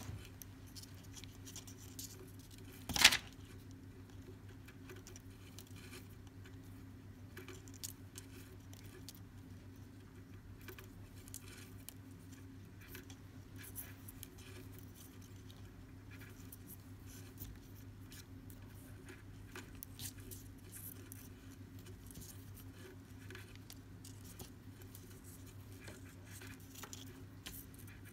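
Hands tying macrame cord knots: faint rustling of the cord and small ticks, with one sharp click about three seconds in, over a steady low hum.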